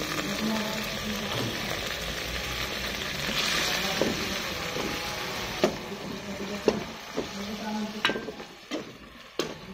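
Onions and seasoning sizzling in hot oil in a metal pot as they are stirred with a spoon. The spoon clinks sharply against the pot a few times in the second half, and the sizzle dies down near the end.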